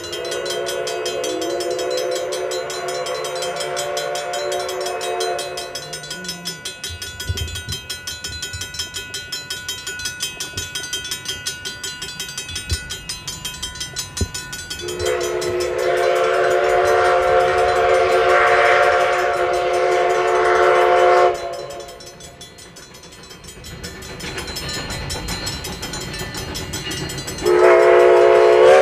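Huckleberry Railroad 152's chime steam whistle blown for a road crossing: two long blasts, then a third starting near the end. Between the blasts, the passing train makes a steady pulsing sound.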